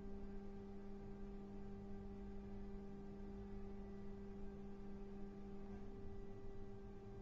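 Steady electrical hum, two low tones with fainter higher ones above them, unchanging, over quiet room tone.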